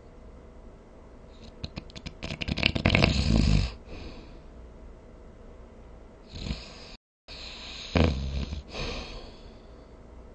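A person snoring: a long fluttering snore about two seconds in, a softer breath, then a brief drop to dead silence and another loud snore starting sharply about eight seconds in.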